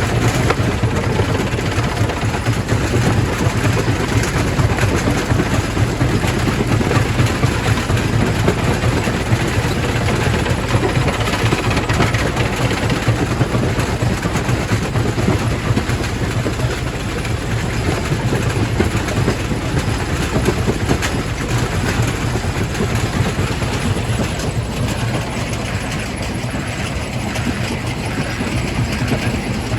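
Quarry primary rock crusher running with stone going through it: a steady heavy machine hum under a dense, continuous rattle of rock, easing slightly near the end.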